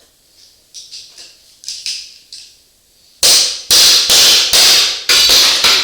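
Pry bar working plastic bumper clips loose: a few light clicks, then from about three seconds in a run of loud knocks, about two a second.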